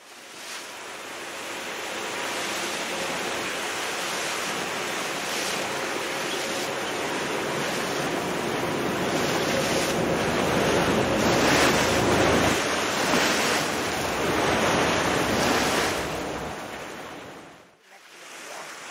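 Open-sea water rushing and splashing as a large pod of dolphins porpoises through the surface, with wind on the microphone. It swells to its loudest around the middle, then fades and drops out briefly near the end.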